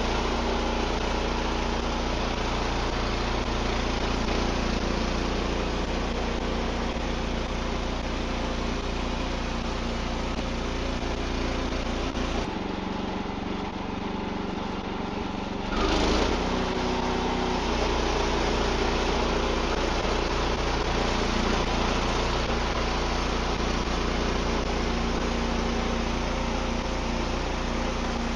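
Small engine of a Wood-Mizer LX55 portable bandsaw sawmill running steadily. Its sound changes abruptly just under halfway through, gives a brief louder burst a few seconds later, then settles back to the earlier steady note.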